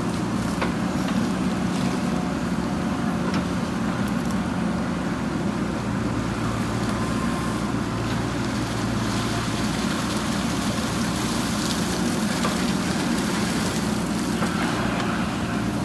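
JCB backhoe loader's diesel engine running steadily under load as the machine digs, a constant low hum with a few faint clicks.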